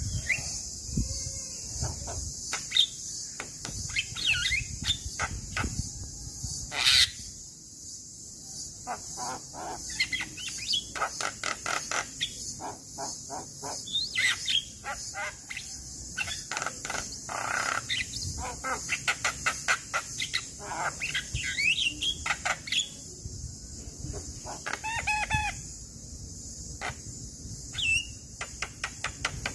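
Male Javan myna singing in a varied, broken run of chirps, whistled glides, squeaks and rapid clicking rattles, over a steady high drone of insects.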